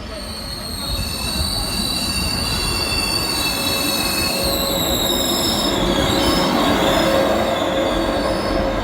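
A train rolling past with its wheels squealing, several high steady squeal tones held over the rumble of the wheels on the track.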